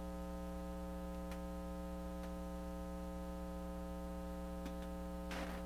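Steady electrical mains hum: a low buzz with a stack of higher overtones. A few faint ticks are heard, and a brief soft rush of noise comes near the end.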